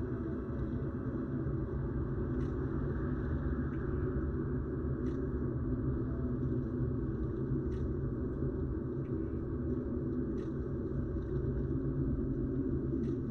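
A car driving, recorded from the car itself: a steady low rumble of road and engine noise, with a faint click about every two and a half seconds.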